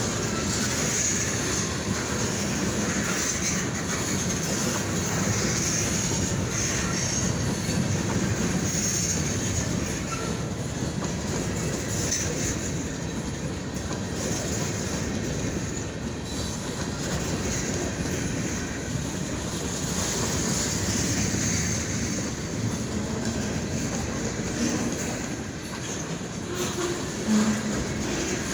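Freight train rolling past with a steady rumble of wheels on the rails and a continuous high squeal, plus one brief louder clank near the end.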